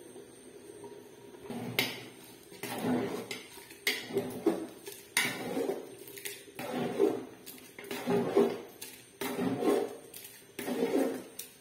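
Metal spoon stirring thick khichuri in an aluminium pot, scraping and clinking against the pot's sides in repeated strokes about once a second, starting about two seconds in.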